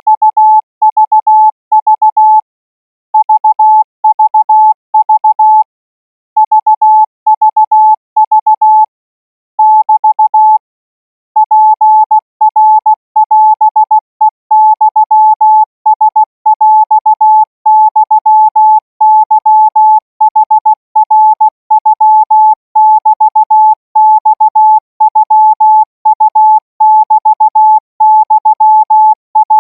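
Morse code training signal sent at 20 words per minute: a single steady mid-pitched beep keyed on and off in dots and dashes. For the first ten seconds or so it comes in short spaced groups, then from about eleven seconds in it runs as a nearly continuous stream of characters.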